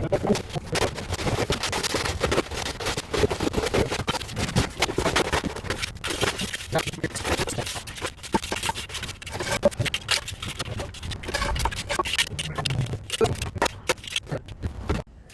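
A hand tool scraping and grating through wet concrete mix in quick, irregular strokes. The sound stops suddenly near the end.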